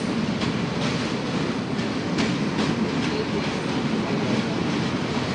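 Passenger express train running along the track, heard from inside a coach: a steady rumble of wheels on rail, with a few light clicks over rail joints in the first three seconds.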